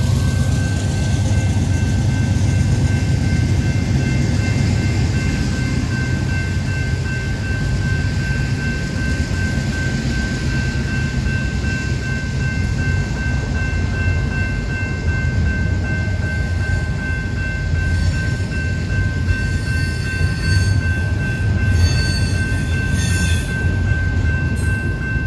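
Double-stack intermodal container train rolling past at a grade crossing: a steady low rumble of the cars going by. From about six seconds in, a steady high-pitched ringing tone lies over it, and there are a few sharp clanks near the end.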